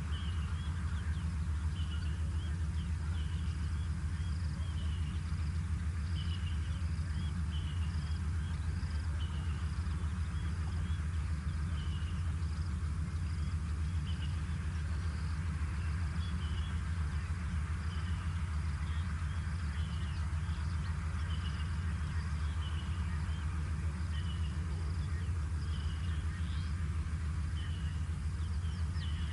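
Steady low rumble with short high chirps repeating roughly once a second over it: outdoor ambience picked up by a wildlife camera's microphone.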